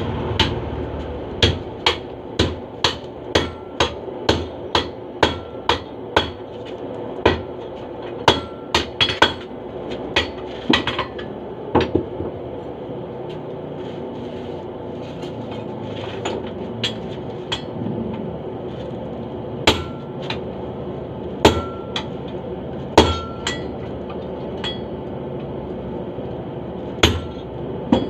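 Hammers striking a red-hot steel blade on an anvil as it is forged by hand, sledgehammer blows alternating with a hand hammer, each strike ringing. The strikes come about twice a second at first, turn irregular, then thin out to single blows after about twelve seconds.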